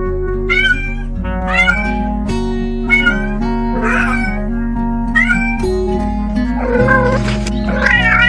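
A cat meowing again and again, about six or seven times, the last call drawn out longer, over background music with held notes.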